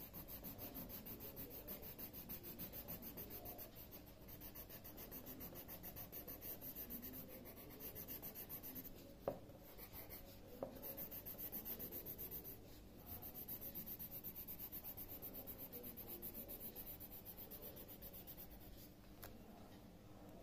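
Pencil scratching back and forth on paper in quick, even shading strokes, with one short tap about nine seconds in; the strokes die away near the end.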